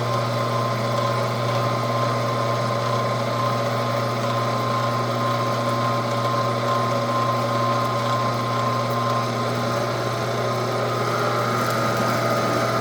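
Weston No. 32 commercial-grade electric meat grinder with a 1.5 horsepower motor running steadily, a constant motor hum with a high whine over it, while it grinds whole quail, chicken feet and organ meat.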